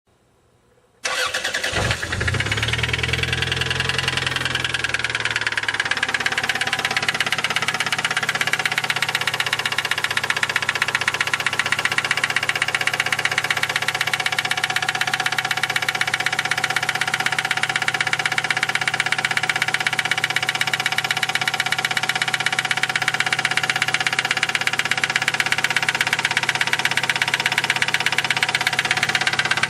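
1989 Toyota Camry engine starting about a second in and settling into an idle with a steady, rapid knocking, which the owner believes is rod knock.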